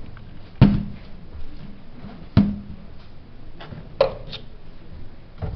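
Three sharp knocks of hard objects on a work surface, about a second and a half apart, the first two with a short low ring, and faint ticks of small handling between them.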